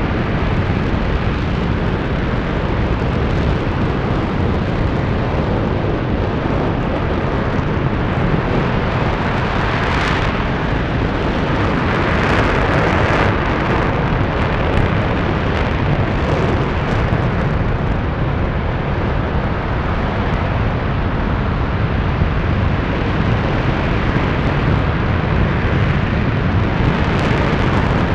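RS-25 liquid-hydrogen/liquid-oxygen rocket engine firing steadily at full power during a long-duration hot-fire test: a continuous loud rushing noise. A brighter hiss swells briefly about ten and thirteen seconds in.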